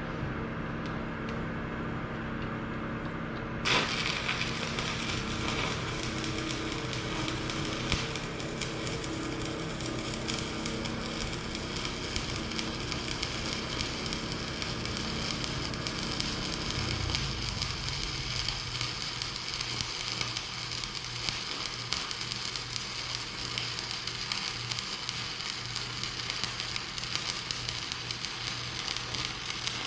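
Stick welding arc struck about four seconds in, then crackling and sizzling steadily as weld is laid on the worn bucket teeth shanks to fill them in. A steady low engine hum runs underneath, its note dropping about halfway through.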